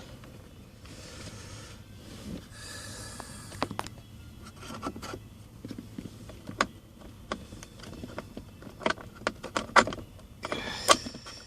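Scattered small clicks and knocks with brief scraping, from a new ignition lock cylinder and its key being handled and pushed into place.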